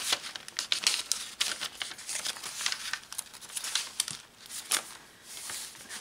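Paper pages of a handmade journal being turned and handled: stiff paper and tags rustling and crinkling under the hands. The crackles are thickest in the first couple of seconds and grow sparser toward the end.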